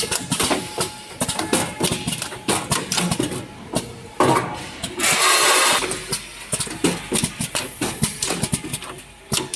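Automatic rotary pick-fill-seal pouch packing machine running, a busy run of mechanical clicks and clacks. A loud hiss lasting under a second comes about five seconds in.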